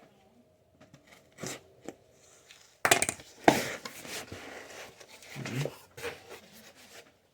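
A cardboard subscription box being opened by hand: a few scrapes and knocks, then louder tearing and rustling from about three seconds in.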